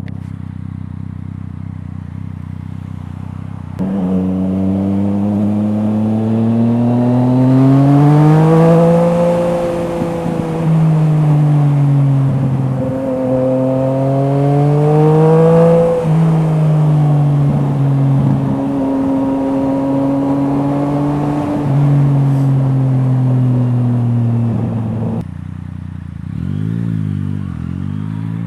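Yamaha MT-09's 847 cc inline three-cylinder engine through an Akrapovič exhaust, heard from the saddle while riding. It runs steadily at first, then opens up about four seconds in, the note rising hard, dropping at a gear change and rising again. It then holds a steadier pull before the throttle closes near the end.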